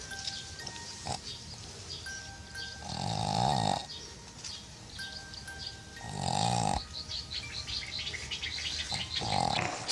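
A dog snoring: three loud rasping snores about three seconds apart, with faint music underneath.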